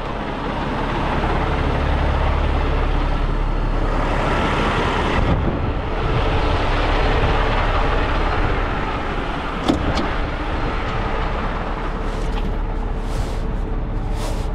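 Peterbilt 389-X heavy rotator tow truck's diesel engine idling steadily, with a single sharp click about ten seconds in.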